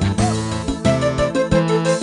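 Instrumental background music with a keyboard melody over bass notes that change every half second or so.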